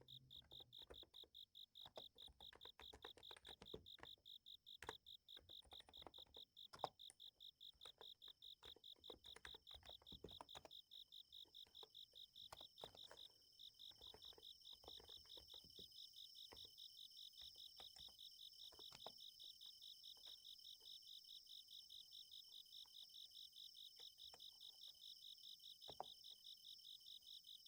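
Night insects trilling in a fast, even pulse, with soft keystrokes from a Niz Plum x108 electrostatic capacitive keyboard. The typing is brisk at first and thins out to occasional keystrokes about halfway through, while a second, higher insect trill joins.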